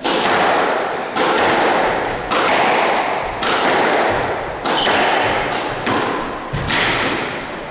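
Squash rally: the hollow rubber ball is struck by the rackets and smacks off the front wall about seven times, roughly once a second. Each hit is a sharp crack that echoes around the court.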